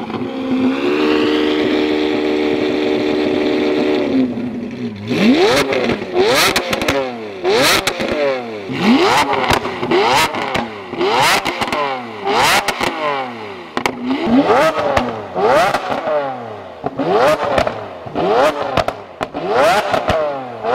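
Lamborghini Aventador LP700-4's V12 through a Fi Exhaust aftermarket exhaust, revved while parked and extremely loud. It holds a steady high rev for about three seconds, then drops and goes into a string of quick throttle blips about once a second, each a sharp rising wail that falls back, with crackles and pops between them.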